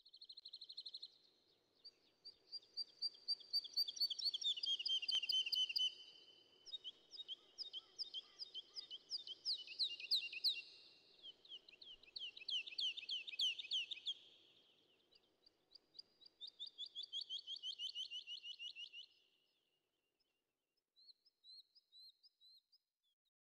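Songbirds singing: long trills of rapid, repeated high chirping notes, several runs overlapping, that die away about twenty seconds in, followed by a few faint chirps near the end.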